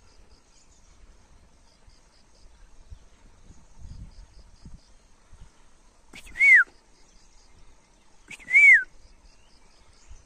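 Two loud whistled notes about two seconds apart, each rising briefly and then sliding down, with faint high chirping in the background.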